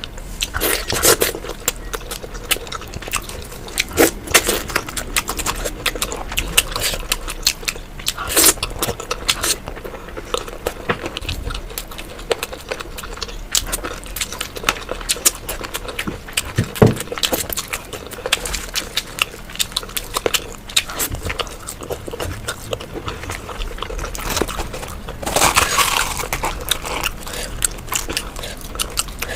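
A person eating puri with curry close to the microphone: a steady run of wet chewing clicks and smacks, with a sharper knock about seventeen seconds in.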